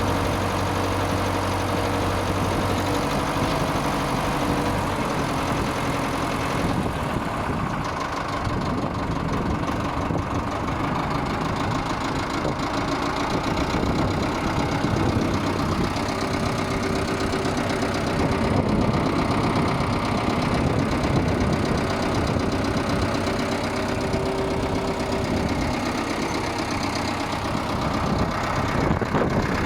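Ford 5000 tractor's four-cylinder engine idling steadily.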